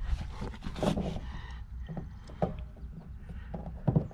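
Scattered light clicks and scrapes of a plastic PVC bulkhead fitting being drawn on a string out through a hole drilled in a plastic rain barrel and handled against the barrel wall, over a low steady hum.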